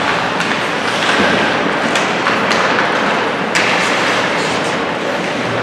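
Ice hockey game play in a rink: a steady wash of skates on ice and crowd noise, broken by several sharp clacks and thuds from sticks, puck and boards.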